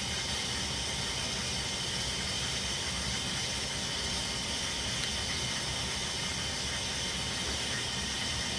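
Steady, even hiss with a low rumble underneath: a constant machine-like background noise that does not change.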